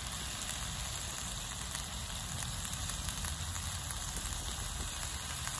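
Teriyaki sauce of butter, ginger, soy sauce and honey sizzling in a hot pan over a wood fire: a steady hiss with faint scattered ticks.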